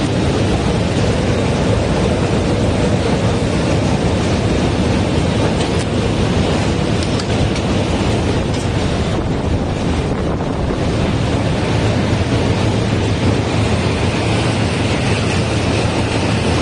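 Corrugated carton converting machine running steadily, a loud, even mechanical din with a low hum underneath.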